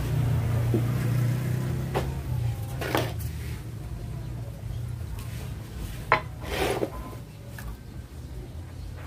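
Knocks and taps from handling a 12-inch subwoofer on a workbench, a few sharp ones about two, three and six seconds in, over a low rumble that fades over the first few seconds.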